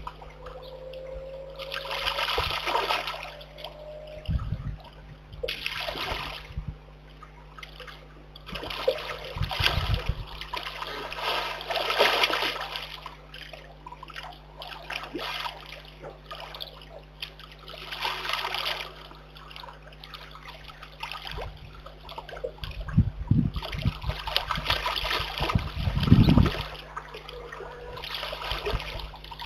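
Brown bear cub splashing and sloshing in a shallow muddy pond, in bouts of a second or two with quieter trickling between, the heaviest splashing near the end.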